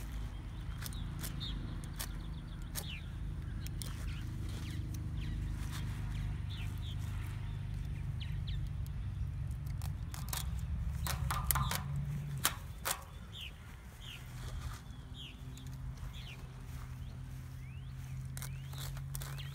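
Scissors snipping through plastic snake netting, with a cluster of sharp clicks about halfway through. Short chirping bird calls come and go throughout, over a low steady rumble.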